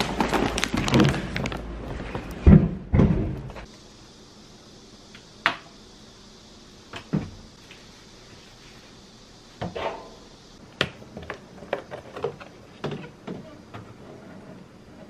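A few seconds of loud, busy noise, then an abrupt cut to a quiet room with scattered light knocks and clicks of things being handled, several in quick succession near the end.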